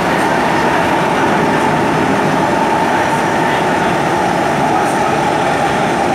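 SMRT C151 metro train heard from inside the car while running at a steady speed: a constant rumble of wheels on the rails and running gear, with no change in pace.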